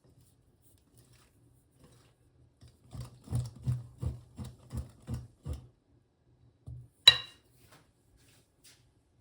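Kitchenware being handled: a run of about eight dull knocks, a little under three a second, then one sharp clink that rings briefly, the loudest sound, about seven seconds in.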